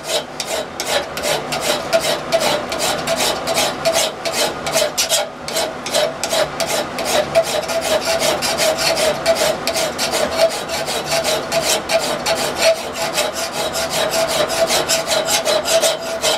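Hand file rasping over the edges of an annealed steel spoon-bit blank clamped in a vise, in rapid, even back-and-forth strokes, with a steady ringing note underneath. The edges are being thinned toward sharp before the tip is cupped, so no cold shut is left in the cutting edge.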